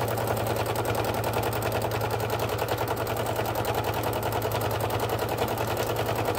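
Domestic sewing machine stitching at a steady, rapid rate for free-motion quilting, the needle and hopping darning foot making a fast even clatter over a constant motor hum.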